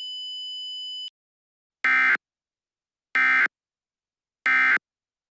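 A steady, buzzy electronic alert tone cuts off about a second in, followed by three short, identical data-burst screeches about a second apart: Emergency Alert System end-of-message (NNNN) tones.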